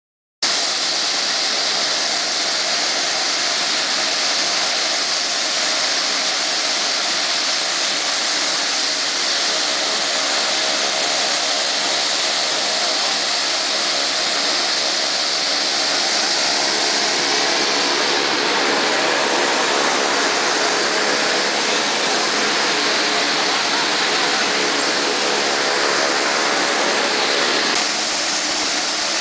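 Twin-engine turboprop's engines running close by as the plane taxis: a loud, steady turbine whine over the drone of the propellers. The sound dips slightly near the end.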